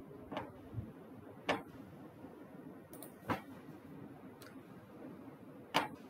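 Five sharp single clicks at uneven intervals over a faint steady room hum, the loudest near the end: clicks from operating a computer.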